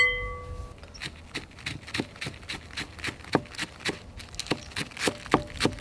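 A sharp ringing clink, then a chef's knife chopping green onions on a cutting board: quick, even knocks of the blade on the board, about four to five a second.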